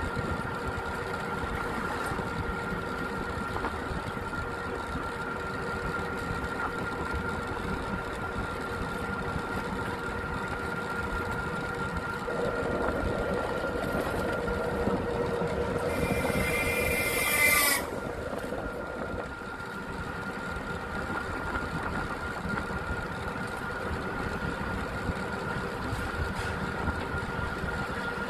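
A vehicle running steadily along a paved road, with engine and road noise. About sixteen seconds in, a horn sounds for about two seconds and is the loudest sound.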